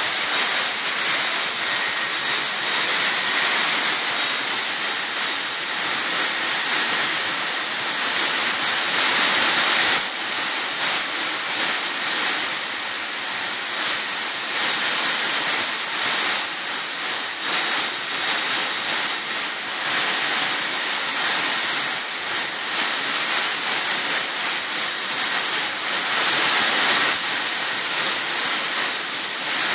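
Laser cutting machine running: a steady, loud rushing noise with a thin high whine above it, which breaks off briefly twice.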